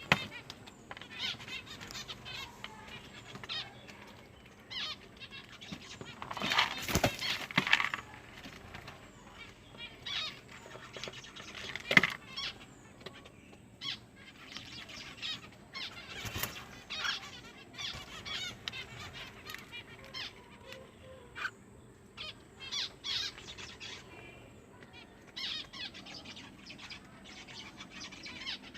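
Pet cockatiel fluttering its wings and chirping, among scattered short taps and rustles, with a longer burst of flapping about seven seconds in.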